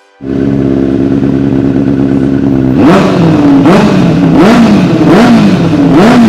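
Benelli 600i's inline-four engine idling, then revved in about five quick blips, the pitch rising and falling with each.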